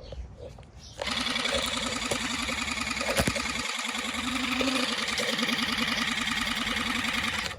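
The pump motor of the battery-powered Fun in the Sun Electric Water Blaster buzzing as the gun fires. It starts sharply about a second in and cuts off suddenly near the end.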